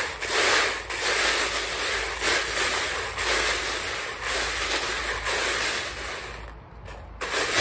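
A hand rummaging through a jar full of plastic 6 mm airsoft BBs: a dense, uneven rattling hiss of pellets shifting against each other and the plastic jar. It dies down for a moment near the end and starts again.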